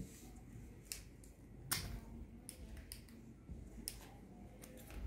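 Scattered light clicks and rattles of plastic hose fittings being handled and fitted onto an expandable hose end, with one louder click a little under two seconds in.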